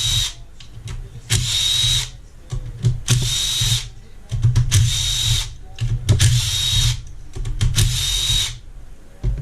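Cordless power driver spinning out the clutch bolts on a 2008 Honda CRF450 engine, in about six short bursts, one bolt after another, with small clicks of handling in between.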